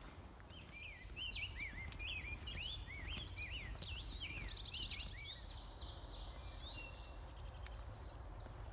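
Songbirds singing in spring woodland: a run of short, slurred whistled notes overlapped by quick high trills that come in three bouts, over a low steady rumble.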